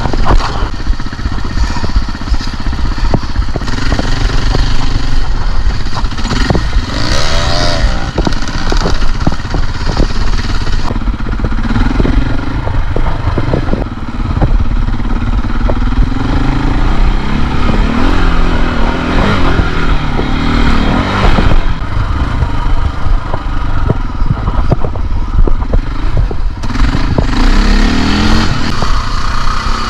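KTM dirt bike engine revving up and down continually while riding a rough trail, with frequent knocks and clatter over the engine.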